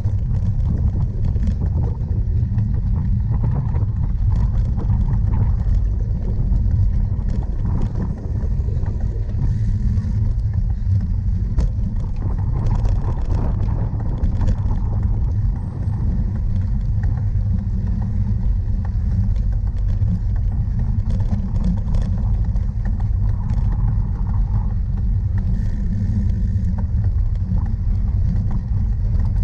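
Steady low rumble of wind and riding vibration on a camera carried on a cyclocross bike, with faint scattered ticks and rattles.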